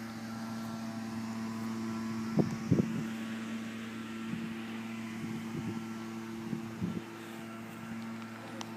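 A steady machine hum of a few fixed pitches, with a cluster of short knocks about two and a half seconds in and a few softer knocks after.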